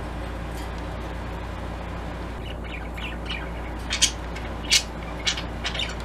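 Budgerigar chirping in a run of short, sharp calls over the last three seconds, the loudest two about four seconds in and just before five, over a steady low hum.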